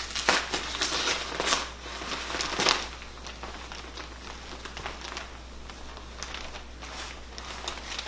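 Paper-faced fiberglass insulation batt being pulled out of a wall cavity by hand: the facing paper crinkles and crackles, loudest in the first three seconds, then softer rustling as the batt is handled.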